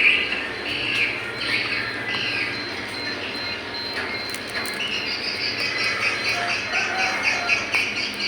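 Small birds chirping in short repeated calls, about two a second, turning into a fast chittering run of calls about five seconds in.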